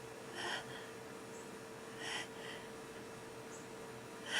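A person's breathy gasps as a held-back sneeze builds: two short ones about a second and a half apart, then a louder breath at the very end as the sneeze breaks.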